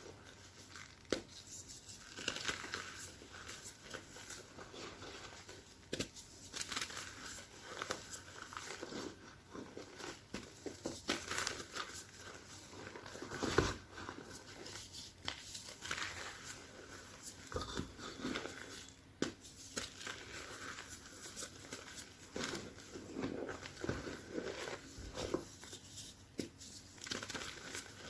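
A single piece of pressed chalk being crushed by hand, crumbling in irregular crunches with a squeaky sound.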